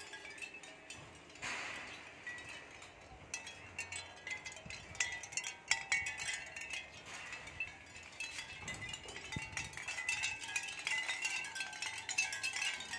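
Capiz shell wind chime: thin, round shell discs knocking together in a continuous, irregular patter of light clicks and clinks, busier in the second half.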